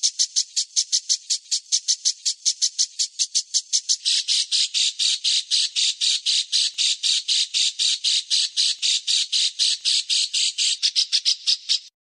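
A songbird's harsh, rasping call repeated rapidly, about six times a second, shifting about four seconds in to a coarser, lower-reaching series about five a second, and cutting off abruptly near the end.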